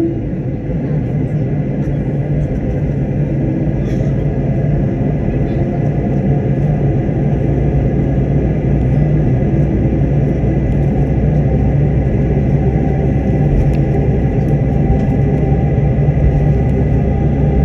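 Steady engine and airflow rumble heard inside an airliner's cabin, deep and unbroken, with a faint steady hum riding on it.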